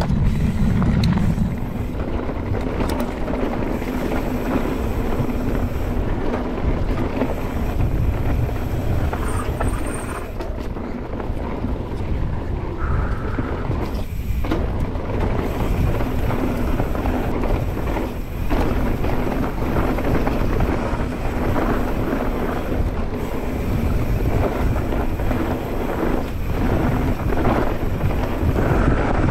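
Mountain bike ridden fast down a dirt trail: steady wind rush over the camera microphone with the rumble of tyres on the ground, and a few short knocks as the bike clatters over bumps.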